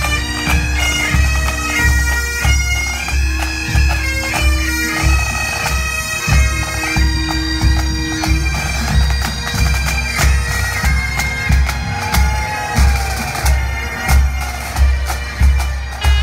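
Pipe band playing a march: bagpipes with steady drones under the chanter melody, over a regular bass drum beat.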